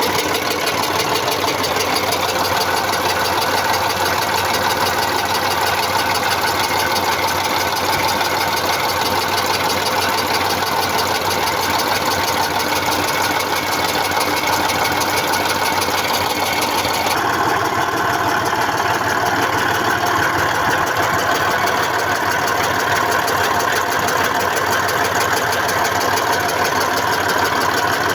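YaMZ-236 V6 diesel engine idling with a knock, which the owner is trying to trace and suspects may come from an injector. About two-thirds of the way through, the sound changes abruptly and turns less hissy.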